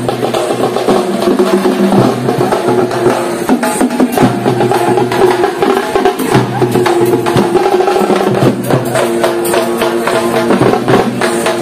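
Dappu frame drums beaten in a fast, dense rhythm, with a held pitched melody line sounding over them.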